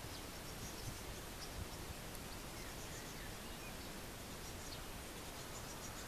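Faint outdoor ambience: a steady background hiss with a few short, high chirps scattered through it and two soft low bumps about a second in.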